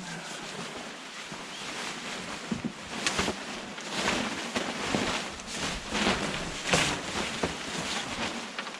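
Nylon tent rain fly rustling and swishing in irregular strokes as it is carried and spread out.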